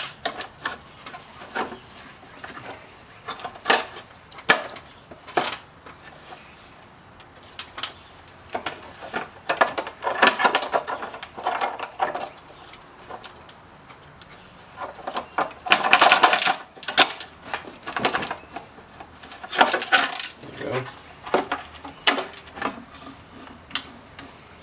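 Hand tools and metal scooter parts clinking and rattling in irregular bursts as the electric scooter's motor is worked loose and taken off.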